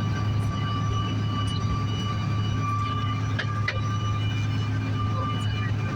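Cabin noise of a CRJ-900 airliner during takeoff: its GE CF34 turbofan engines run steadily, a low rumble with several steady whining tones over it. Two short clicks come about three and a half seconds in.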